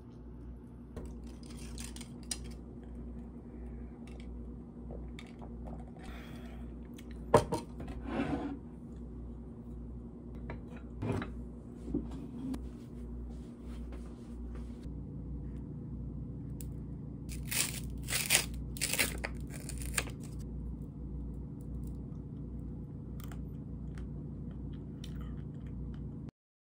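Packaging being torn and crinkled as the wrapper comes off an ice cream cone, in several quick rustles about two-thirds of the way through. Earlier there are a few light knocks and rustles, all over a steady low hum.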